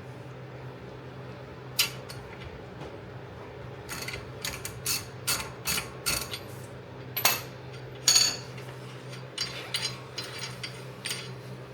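Ratchet wrench clicking in short, irregular runs as a lug nut is tightened down over stacked washers, drawing a new wheel stud into the rear hub of a 2020 Subaru WRX STI.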